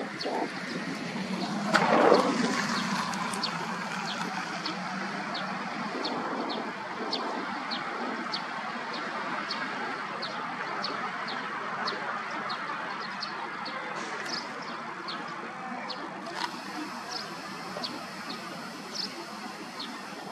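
Distant twin-engine jet airliner climbing away after takeoff: a steady, even roar, with small birds chirping repeatedly over it. About two seconds in, a louder sound sweeps down in pitch and fades.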